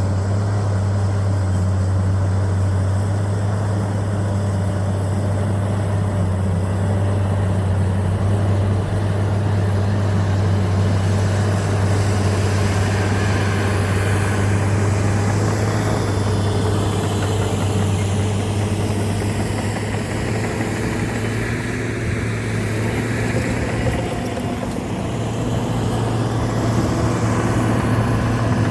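Diesel engine of a John Deere 750J crawler dozer running steadily, a continuous low drone while it works clay. The level sags a little about three quarters of the way through, then comes back up.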